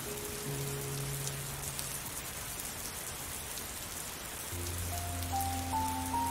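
Steady rain falling, an even hiss with scattered drop ticks, under soft, slow music of held notes; a low note and a slow higher melody come in about halfway through.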